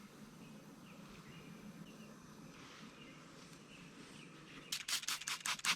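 Faint bird chirps, then near the end a quick run of about seven squirts from a spray bottle, the loudest sound: soapy water sprayed onto the mini-split's refrigerant line fittings to check for leaks.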